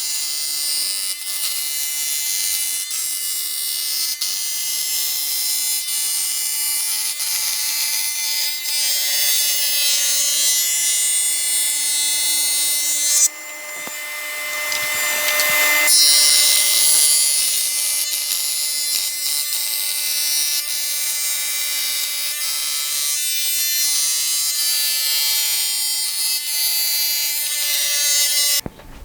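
Table saw with a dado blade stack running and cutting a wide groove along a wooden board: a steady whine over a hiss, interrupted about halfway through for a few seconds by a plain rushing hiss. It stops abruptly near the end.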